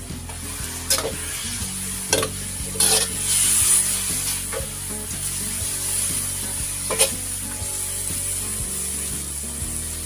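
Beef cubes sizzling in a metal wok as they are stirred and tossed, the utensil clinking sharply against the pan about five times, with a noisier scrape around a third of the way in.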